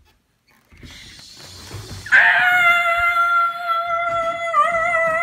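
A child's long, high scream, held at a nearly steady pitch with one brief waver, starting about two seconds in after a soft hiss.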